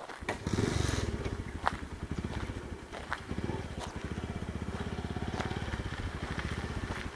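A small vehicle engine running with a rapid, even pulsing beat, coming up about half a second in as the vehicle pulls away, with a few sharp clicks and knocks over it.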